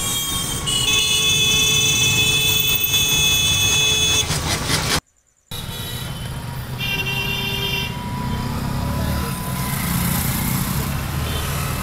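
Busy street traffic heard from a moving rickshaw, with a vehicle horn held steadily for about three and a half seconds. After a brief drop-out, a second, shorter honk of about a second follows.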